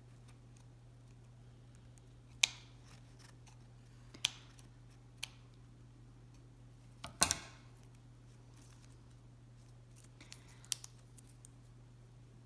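Scissors snipping roots off a miniature Cattleya orchid: about five sharp snips a second or two apart, one a quick double in the middle.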